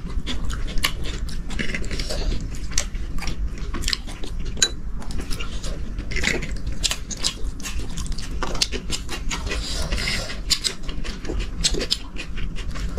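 Eating sounds: chewing and biting food, with many short clicks and taps of cutlery on dishes, over a steady low hum.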